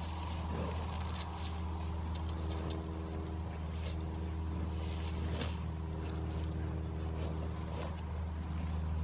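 A steady, low engine hum holding one pitch, with scattered faint clicks and rustles over it.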